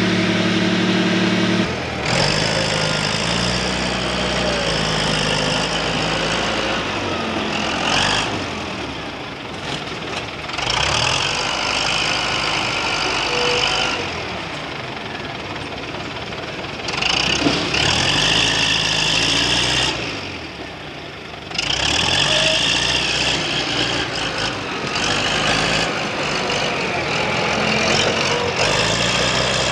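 Wheel loader's diesel engine working, revving up and down again and again, with a high whine and hiss that come and go. A steadier engine hum before a cut about two seconds in.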